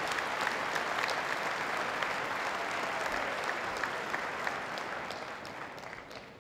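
Audience applauding: many people clapping steadily, dying away near the end.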